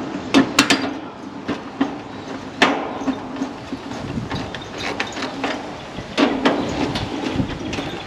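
Metal clicks and taps of a screwdriver and the sheet-metal service panel being handled and screwed back onto an air conditioner's outdoor condenser unit, over a steady low hum. The sharpest clicks come in clusters near the start and about a third and three-quarters of the way through.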